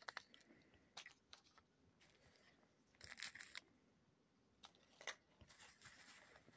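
Faint rustling and crinkling from a plastic zip bag and a cloth pouch being handled, in a few short spells: about a second in, around three seconds and around five seconds.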